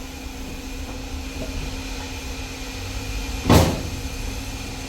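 Steady low hum of machinery running, with one sharp knock about three and a half seconds in.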